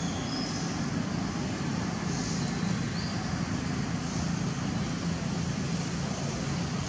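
Steady outdoor background noise with a low hum, and a few faint, short, high-pitched chirps.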